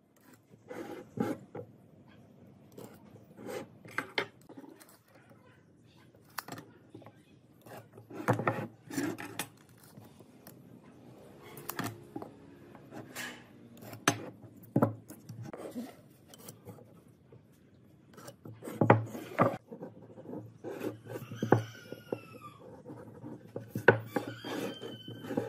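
Handling sounds of solid pine blocks and a steel ruler on a wooden tabletop: irregular knocks as blocks are set down and moved, with scrapes and rubs of the ruler and pen sliding across the wood. A few short, high, falling squeaks come near the end.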